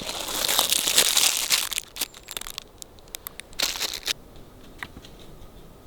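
Close crinkling and rustling handling noise, loud for the first two seconds or so, with a second short burst about three and a half seconds in and a few faint clicks after.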